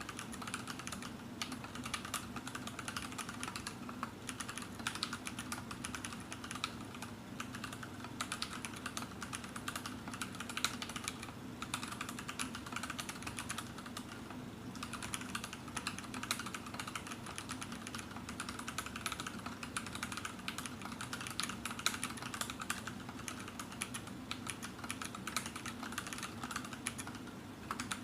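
Typing on an Anne Pro 2 60% mechanical keyboard: a fast, steady stream of key clicks and clacks, with a couple of brief pauses partway through.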